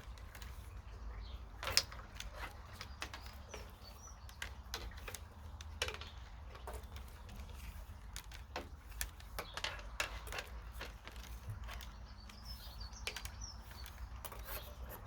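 Willow rods creaking and clicking as they are worked by hand into a spiral pairing weave: irregular sharp clicks and small knocks. A few faint bird chirps come through about three seconds in and again near the end.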